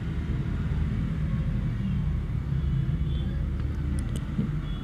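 Steady low background rumble, with a few faint short high chirps and a light tick or two near the end.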